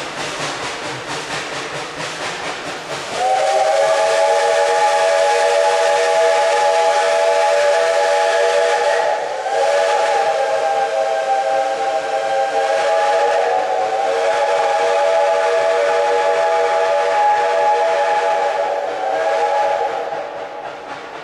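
Steam locomotive whistle blowing a long, loud blast of several notes together, broken only by two brief dips, as the train pulls away. It starts suddenly about three seconds in, after the train's rolling noise, and ends near the end.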